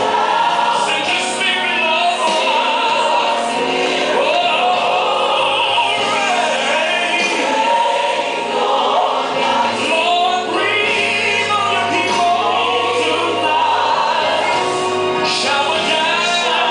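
Gospel worship music: voices singing with vibrato over instrumental accompaniment with held bass notes.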